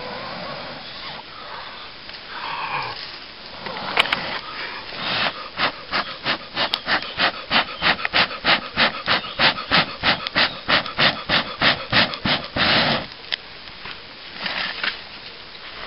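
Rapid short puffs of breath blown onto a glowing charcoal ember in a dry tinder bundle, about three a second for several seconds, to feed it air toward flame. Before the puffs there is a soft rustle of the tinder being handled.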